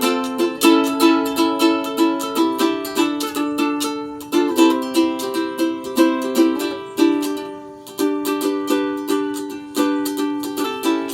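Ukulele strummed in a steady, quick rhythm, playing chords with no singing.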